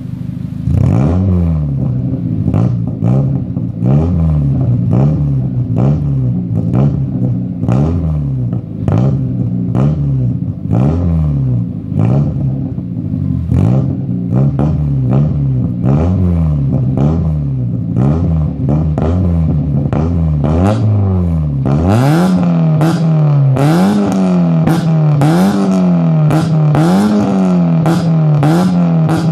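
The four-cylinder engine of a 1996 Mazda Miata with a decatted, hand-made stainless straight cat-back exhaust and racing muffler, revved repeatedly while standing still, about once a second. Sharp pops and crackles come from the exhaust as the revs fall. About two-thirds of the way through, the low rumble drops away and the sound turns sharper.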